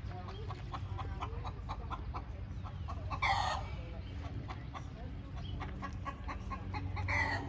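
Chickens clucking, with two loud short squawks, one a little past three seconds in and one near the end.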